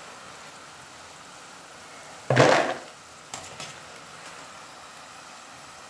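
Food sizzling steadily in hot oil, with one loud clatter about two seconds in and a few lighter clinks a second later.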